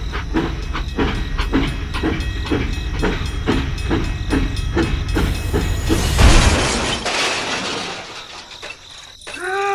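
Rhythmic mechanical chugging, about three beats a second over a low rumble. About five seconds in, a burst of hiss takes over and fades, and a short horn-like toot that rises and falls in pitch comes at the very end.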